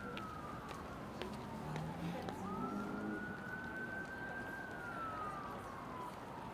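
An emergency vehicle's siren wailing. The tone falls slowly, rises quickly about two and a half seconds in, holds high, then slides down again.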